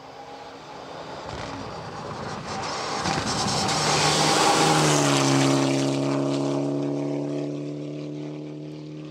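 Mitsubishi Lancer Evolution X rally car's turbocharged four-cylinder engine at full throttle as the car approaches and passes, loudest about four to five seconds in. Its pitch drops as it goes by, and the note holds steady and fades as it pulls away.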